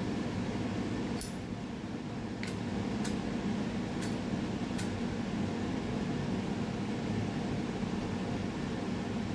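Steady machine-like hum of room background noise, with five faint light clicks in the first five seconds.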